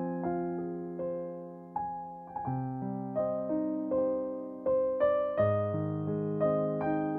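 Slow, gentle solo piano music: single notes and chords struck every half second to a second and left to ring and fade.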